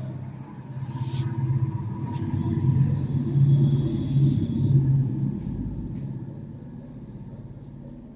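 A motor vehicle's engine running with a low hum that grows louder over a few seconds and then fades away.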